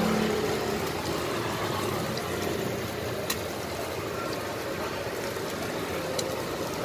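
Steady street-side background noise, like passing traffic, with a few faint light clicks from hands setting toppings on a wooden cutting board.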